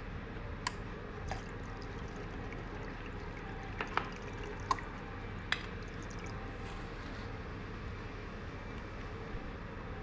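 About half a dozen short, sharp clicks and taps as plastic soil moisture sensor probes are handled and pushed into buckets of soil, over a steady low hum.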